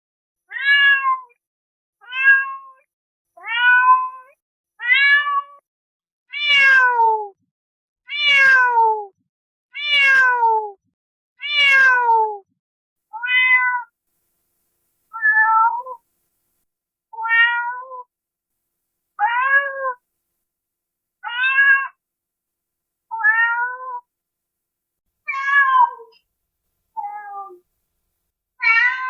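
A domestic cat meowing over and over, about one meow every one and a half to two seconds. The meows in the middle are longer and slide down in pitch.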